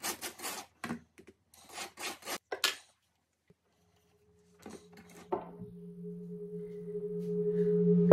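Butter knife scraping butter across slices of toast, a quick run of short scratchy strokes in the first three seconds. About five seconds in, soft ambient music with a low steady drone fades in and grows louder toward the end.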